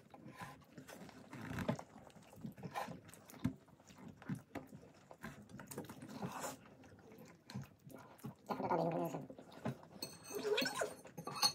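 People chewing and smacking their lips while eating by hand, with scattered wet clicks. Brief voice-like murmurs come about eight and a half seconds in and again near the end.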